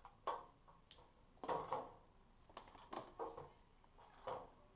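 Short, irregular metallic clinks and taps, about seven in all, from bolts and hand tools knocking against the lower intake manifold as its bolts are set in by hand.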